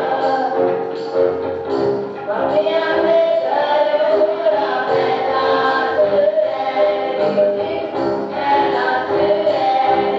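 A group of students singing a song together in chorus, with keyboard accompaniment under the voices.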